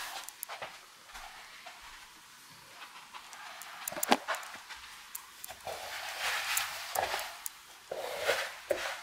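Footsteps and rustling of clothes and handling on a hard floor, with a sharp knock about four seconds in as a pair of hiking shoes is dropped to the floor.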